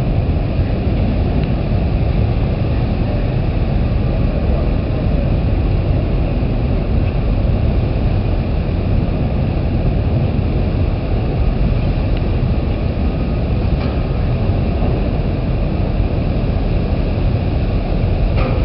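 Ro-ro ferry Commodore Clipper manoeuvring alongside a quay to berth: a loud, steady low rumble of its engines and churning propeller wash.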